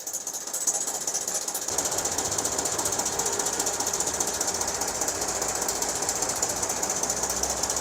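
2012 Hyundai Equus engine running with a fast, steady ticking rattle, which the mechanic takes for a stretched timing chain. The rattle fills out a little under two seconds in.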